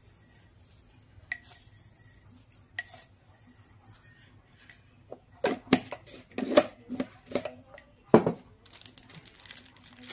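A metal spoon clinking against seasoning containers and a stainless-steel pot as seasonings are added: two single clinks with a short ring, then a quick run of taps and knocks, the loudest about eight seconds in.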